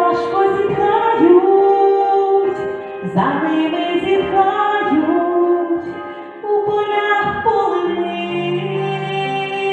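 A song: a woman singing long held notes over instrumental accompaniment, with low sustained notes coming in near the end.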